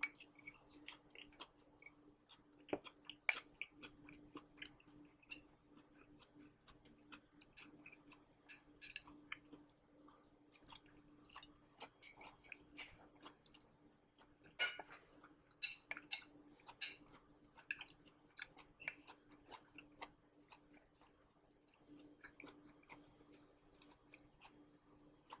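A person chewing crisp dry-fried green beans, heard close up through a shirt-clipped microphone: a run of faint, irregular crunching clicks, a little busier about halfway through.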